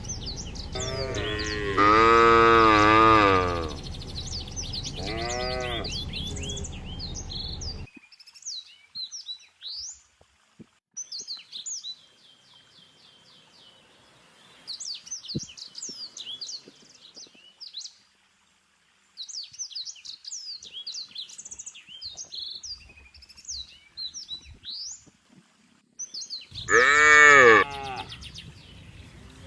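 Cattle mooing: a long call about two seconds in, a shorter one around five seconds, and another loud one near the end. Small birds chirp and sing through the quieter stretch between the calls.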